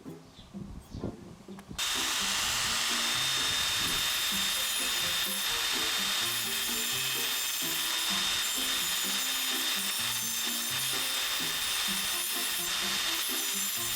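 Angle grinder working stainless steel. It starts suddenly about two seconds in and runs steadily as a loud hiss with a thin high whine, over background music.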